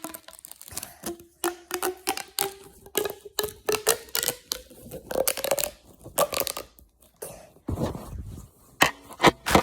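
Quick clicks, taps and rustles of a small plastic fidget toy being handled, with faint music underneath. The handling gets denser and more rustly about three-quarters of the way through.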